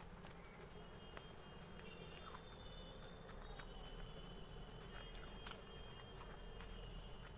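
Faint, steady high-pitched chirping pulse repeating about five times a second, over a low hum, with a few soft clicks from eating.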